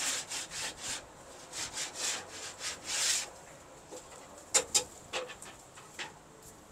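A run of short scraping or rubbing strokes, about four a second, for roughly three seconds. Then come two sharp clicks about a third of a second apart and a few fainter ticks.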